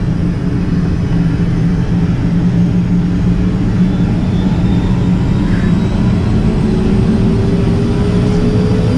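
Helicopter turbine engine and rotor running on the ground, heard inside the cockpit, a steady low rumble with a constant hum. About two-thirds of the way through, a thin whine begins to rise slowly in pitch as the engine winds up.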